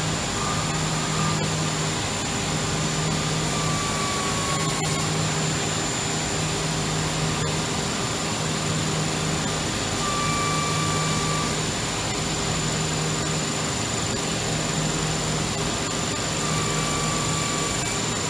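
Intorex CNC lathe running steadily while cutting and sanding a square tapered wooden leg. A low hum cuts in and out every second or two, and a few brief higher whines come and go.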